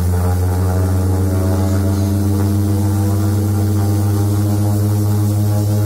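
Turboprop engine and propeller of a DHC-6 Twin Otter floatplane at takeoff power, heard from inside the cabin: a loud, steady drone with a strong low hum.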